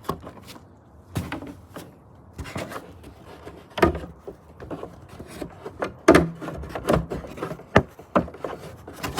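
Range Rover Sport engine cover being pushed and pressed down onto its mounts: a series of irregular clunks and knocks, the loudest coming in the second half.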